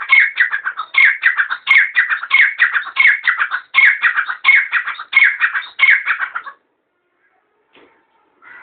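Grey francolin calling: a loud series of about nine harsh, rapidly repeated phrases, roughly one every 0.7 seconds, each a quick run of notes falling in pitch, stopping about six and a half seconds in.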